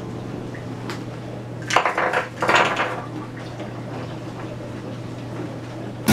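Two short bursts of clattering handling noise from items being moved on a kitchen counter, about two and two and a half seconds in, over a steady low hum.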